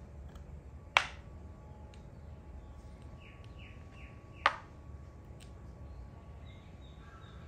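Thai chess (makruk) pieces set down on the board: two sharp clacks about three and a half seconds apart, the first about a second in.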